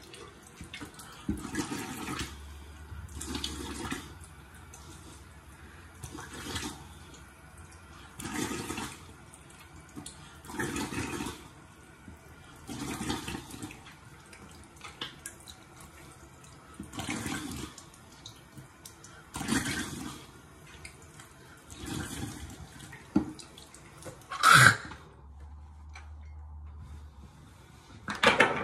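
Water splashing at a bathroom sink as the face is rinsed by hand, one splash about every two seconds, with a sharper, louder splash near the end.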